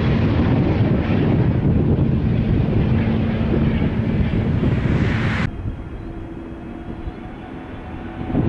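Jet engines of an arriving Airbus A350-900: a loud, steady rumble with a low hum. About five and a half seconds in it cuts off abruptly, and the quieter, steady whine of an approaching Boeing 777-300's engines follows.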